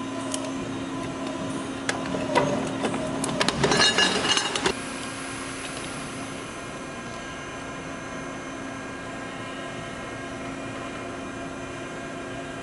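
Sealed-unit compressor cutting machine at work: a run of sharp metal clanks and knocks for a couple of seconds, then a steady mechanical hum with several fixed tones as rollers spin a steel compressor shell against the cutting blade.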